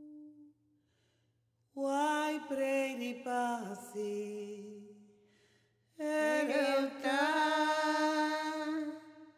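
Soundtrack music: a wordless, chant-like vocal line sung in two long phrases with sliding pitch. The first phrase starts about two seconds in and the second about six seconds in.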